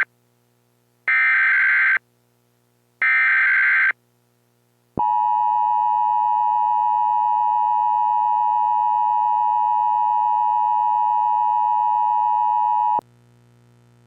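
Emergency Alert System tones announcing a tornado warning. First come two SAME header data bursts, each about a second long and a second apart. At about five seconds the two-tone attention signal starts: a loud steady tone, about eight seconds long, that cuts off abruptly near the end and leaves a faint low hum.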